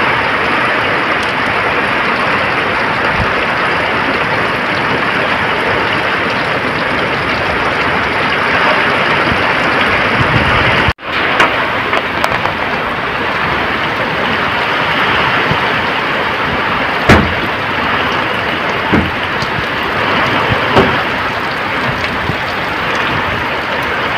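Heavy rain pouring steadily, a dense continuous hiss of rain on the ground and roofs. The sound cuts out for an instant about eleven seconds in, and a few sharp knocks stand out in the second half.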